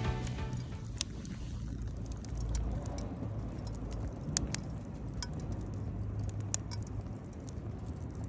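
Faint scattered clicks and crackles over a low rumble, with the tail of background music fading out at the start.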